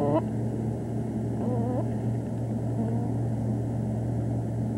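Steady low hum with hiss, the background noise of an old home-video recording, with a faint short voice about a second and a half in.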